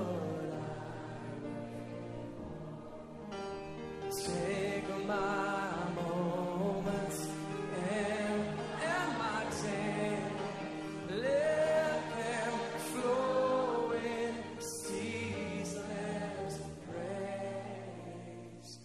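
A group of voices singing a hymn together, in slow, held notes.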